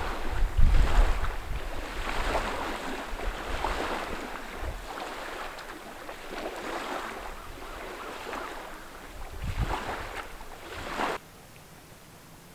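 Small waves washing and lapping against a rocky shore and stone boat ramp, swelling and falling back in repeated surges, with wind rumbling on the microphone. The sound cuts off suddenly near the end.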